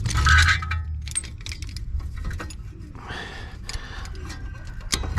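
Metal clinks, clicks and rattles of hand tools and brake parts being handled, with a heavier knock in the first second and a sharp click near the end.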